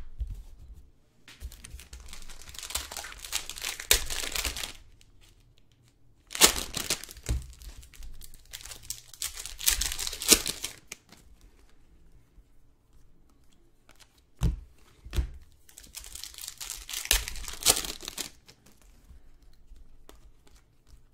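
Prizm basketball card pack wrappers crinkling and tearing as packs are opened, in three bursts of handling a few seconds long with quieter gaps and a couple of light knocks between.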